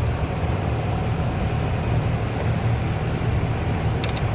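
A steady low rumble of workshop background noise, with a quick cluster of sharp, light clicks about four seconds in.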